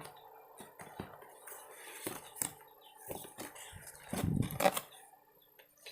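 Opened parcel packaging being handled: scattered light taps and rustles, with a louder rustle about four seconds in.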